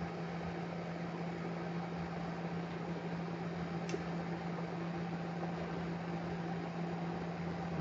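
Steady low hum over an even hiss from a running appliance such as a fan, with one faint click about four seconds in.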